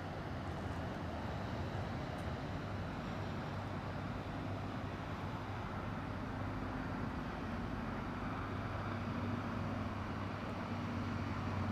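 A steady, muffled low rumble, with a person faintly humming a tune from about halfway through.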